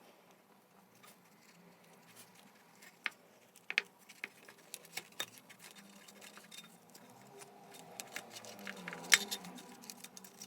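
Scattered light clicks and taps of small metal parts being handled, with a louder knock about nine seconds in and a rubbing noise building near the end.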